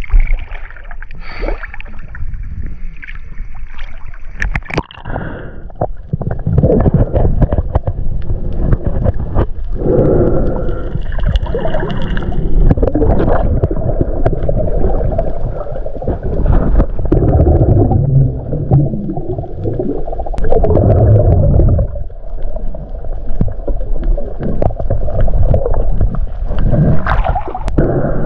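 Water sloshing and splashing around a camera held at the surface for the first few seconds. About five seconds in it goes under, giving way to the muffled rush and gurgle of water heard through the submerged camera, dotted with scattered clicks and knocks.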